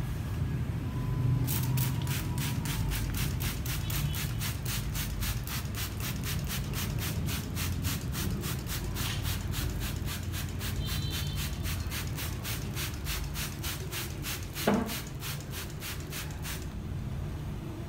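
Plastic trigger spray bottle misting water, squeezed in a rapid, even rhythm of short hissing sprays, about three a second, that stop near the end. A single knock sounds shortly before the spraying stops.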